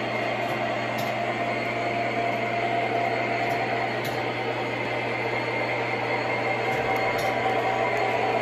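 O scale model trains running on three-rail track: a steady whirring of motors and wheels with a low hum under it and a few faint clicks as the wheels pass rail joints.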